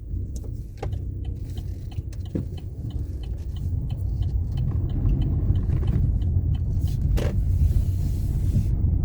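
Chevrolet Onix heard from inside the cabin while driving through a slow U-turn: a steady low road and engine rumble with a light ticking at about three a second. A few sharp knocks come through, the strongest about seven seconds in, from the steering, which the owner says is knocking badly.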